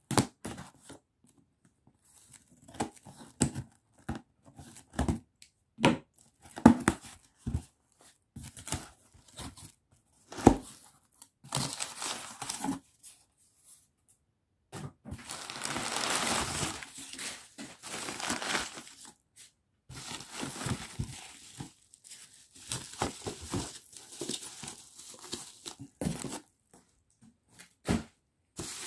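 A cardboard shipping box being opened: scissors snip and cut through parcel tape in short sharp strokes with knocks against the box. Then crumpled newspaper packing rustles and crinkles in longer stretches as it is pulled aside.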